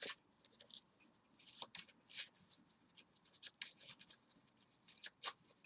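Faint scratchy flicks and slides of Yu-Gi-Oh! cards being handled, the cards rubbing against each other in many short, irregular strokes.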